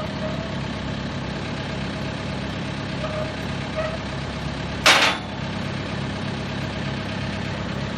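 Vermeer BC 1800 XL wood chipper idling steadily with its feed rollers turning. About five seconds in there is one loud, short burst of noise, louder than the engine.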